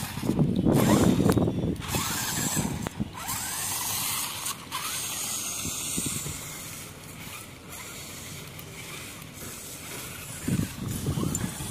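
A toy RC rock crawler's small electric motor and gearbox whirring as it drives across concrete, with tyre noise. It is loudest in the first couple of seconds and again briefly near the end.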